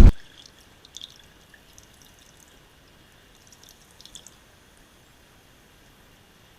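Faint water drips and small trickles from a kayak paddle, with slightly louder drips about one second and four seconds in.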